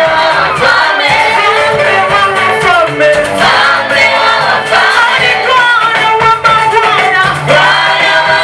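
Gospel choir singing in Swahili with instrumental accompaniment and a steady bass line.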